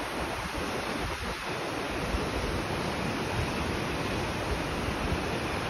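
A swollen, muddy river in flood rushes fast over rocks: a steady, even noise of churning water with no distinct events.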